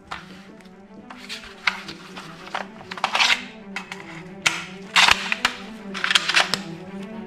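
Toy guns being handled: a string of hard plastic clicks and clacks, with a denser run about three seconds in and again near five and six seconds, over a faint steady hum.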